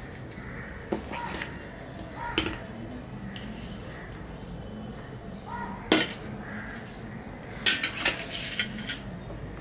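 Stainless steel plate and bowls clinking and knocking as a bowl of fish curry is tipped onto a plate of rice and the small bowls are moved. The sharpest knock comes near six seconds in, and a quick run of clinks follows near the end.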